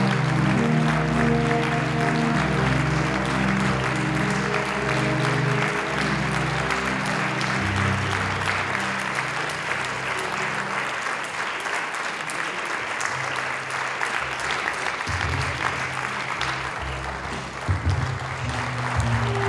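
Theatre audience applauding over music of sustained low notes.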